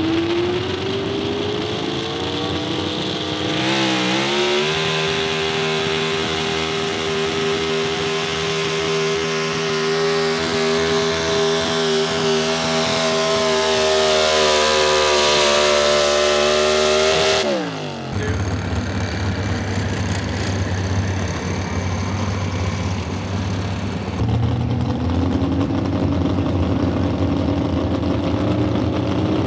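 Pro Stock 4x4 pulling truck's big-block V8, fed by a single four-barrel carburettor, at full throttle pulling a weight-transfer sled. The revs climb over the first few seconds, dip briefly, then hold high and steady for about thirteen seconds before the engine note falls away sharply at the end of the pull. Then a second pulling truck's engine runs low and rough at the line, its revs rising near the end.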